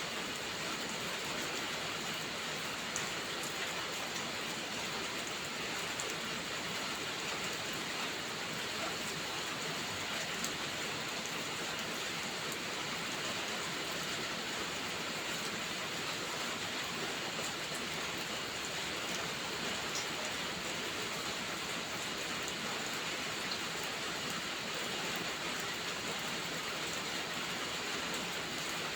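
Steady rainfall, an even hiss of drops on surfaces, with a few faint sharp ticks here and there.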